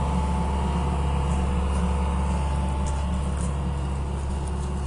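Excavator's diesel engine running steadily under load as it lifts and carries the suspended pool shell, a low, even drone.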